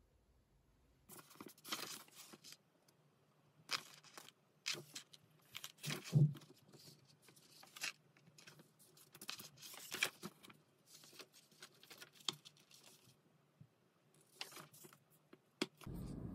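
Paper pages being turned and handled: an irregular run of quick rustles and swishes starting about a second in. Near the end a steady low room hum takes over.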